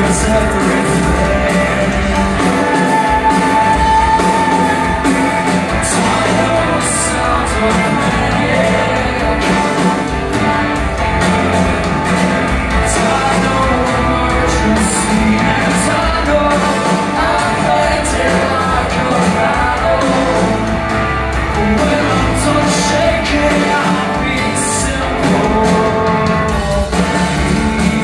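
Live rock band playing, with electric guitars, bass and drums under singing, heard from the audience in a large hall.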